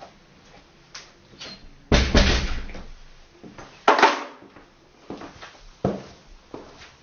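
Knocks and thumps: two loud ones about two and four seconds in, a smaller one near six seconds, with a few faint ticks between.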